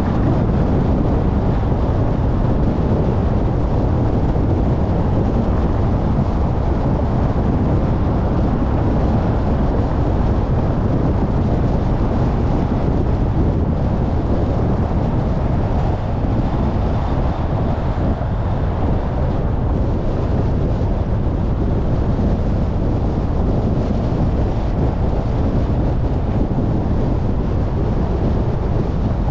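Steady low rumble of road and wind noise from a car driving at city speed.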